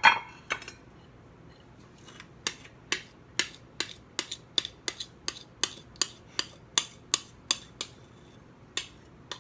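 A spoon or spatula clinking and knocking against a mixing bowl as cake batter is emptied into a pan: a sharp clink, then a quick run of light knocks, about three a second.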